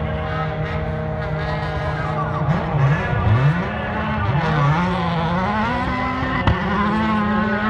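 Rally car engines running hard at high revs. Around the middle the revs drop and climb again, as the cars lift off and accelerate, and then they hold a higher steady note. A single sharp crack comes near the end.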